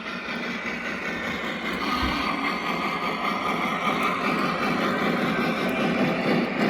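Lionel Western Pacific model train locomotive running, with a steady mechanical engine-like sound from its sound system and motor that slowly grows louder. A whine comes in about two seconds in and rises slightly in pitch.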